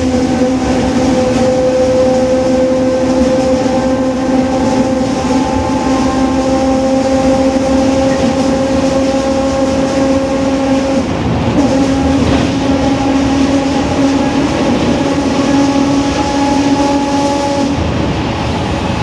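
City bus rear differential whining at highway speed inside the cabin: a steady gear whine with several pitched tones over road and tyre noise. The whine wavers briefly a little past halfway and fades out near the end, leaving the road noise.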